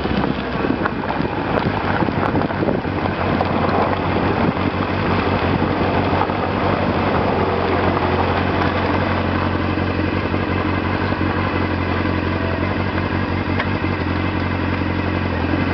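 Motorcycle engine running, with wind buffeting the microphone in the first few seconds. After about five seconds it settles into a steady, even idle.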